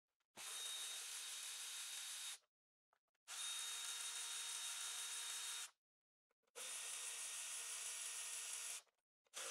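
Cordless power ratchet running in three bursts of about two seconds each as it spins out the 10 mm engine cover bolts, with a steady high motor whine.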